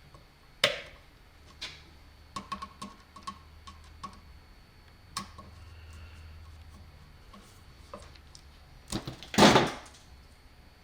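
Scattered clicks and light taps of hands and small tools working wires and terminals in a metal electrical box, with a louder clatter about nine and a half seconds in. A faint steady hum runs underneath.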